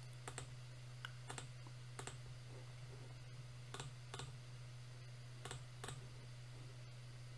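Computer mouse clicking a handful of times at irregular intervals, faint, over a steady low hum.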